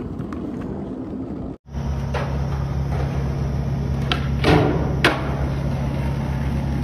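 Skateboard clacking against a concrete ledge and the ground during a ledge trick: three sharp knocks within about a second, midway through, over a steady low hum.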